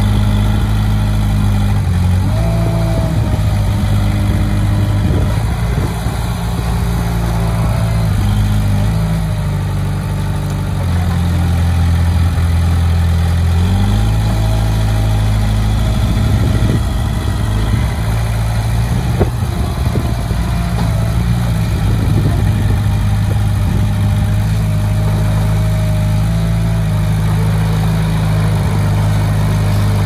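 Heavy diesel engine of an earthmoving machine running steadily, its pitch stepping down for about three seconds midway and then rising again. A faint thin whine comes and goes several times over it.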